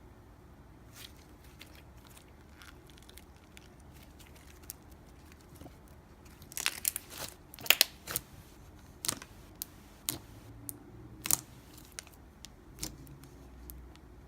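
Slime being squished and stretched by hand, giving scattered sticky clicks and crackles, with a busier run of louder pops about seven to eight seconds in.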